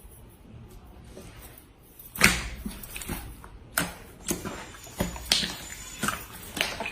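Crackling slime being squeezed and worked by hand, giving sharp wet snaps and pops roughly every half second to a second, starting about two seconds in; the first snap is the loudest.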